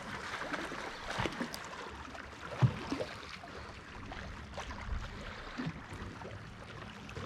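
Water lapping and trickling against a boat hull, with scattered light knocks and one sharper knock a little over two seconds in.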